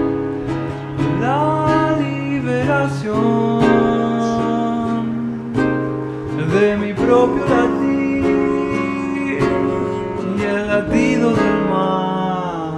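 A man singing over an acoustic guitar that he plays himself, the notes ringing on continuously under a voice that glides between pitches.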